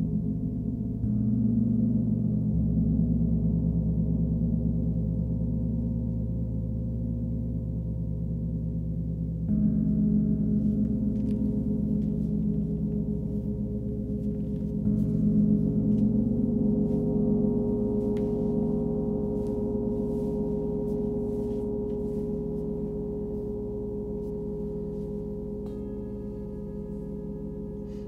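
Large hammered gong played with a soft felt mallet: three gentle strokes about six seconds apart, each swelling into a deep, long-ringing hum that slowly fades. A higher, clearer ringing tone joins near the end.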